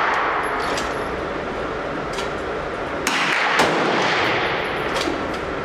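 Gunshots inside an indoor shooting range: several sharp reports at uneven intervals, the loudest about three and a half seconds in. Each rings into a dense, continuous echo that never dies away between shots.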